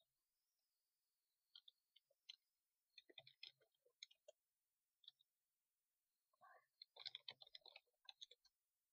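Faint typing on a computer keyboard: short runs of keystroke clicks with silent pauses between them, as words are typed.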